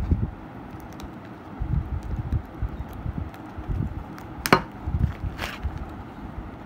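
Clear plastic wrapping rustling and crinkling as hands peel it off a metal belt buckle, with low handling thuds throughout. A sharp click about four and a half seconds in and a softer one a second later.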